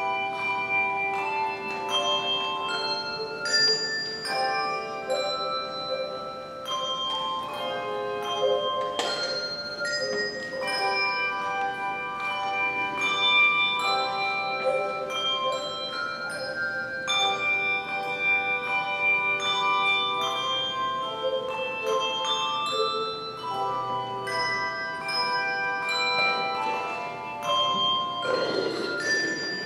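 A handbell choir playing a piece: many handbells ringing together in chords that change every second or two, each note sustaining and fading slowly.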